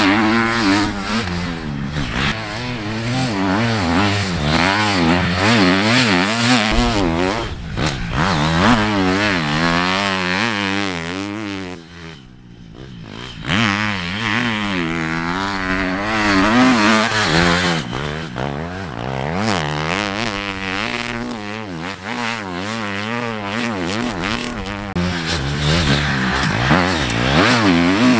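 Triumph four-stroke motocross bike engine revving up and down over and over as the bike is ridden hard through sand corners. It dips quieter for about a second and a half around the middle.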